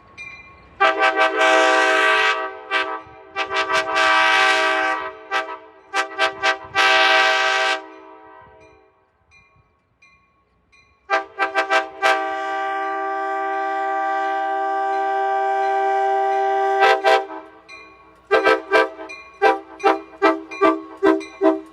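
Pacific Surfliner cab car 6908's multi-chime train horn, freshly repaired after being chipped, sounding in a series of blasts. Two long blasts and a few short toots come first, then after a pause a few toots lead into a long blast of about five seconds, and it ends with a quick run of short toots.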